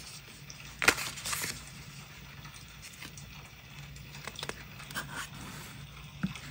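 Small paper collage pieces being handled and shuffled between the fingers, making crisp paper rustles and sharp clicks, the loudest a snap about a second in. Near the end one piece is laid on the notebook page and pressed down with a thin stick.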